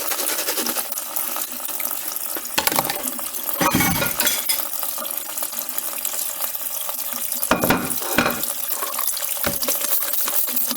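Hand-washing dishes at a kitchen sink: tap water running steadily, with several knocks and clatters of dishes against each other and the sink, a cluster around the middle and another past halfway.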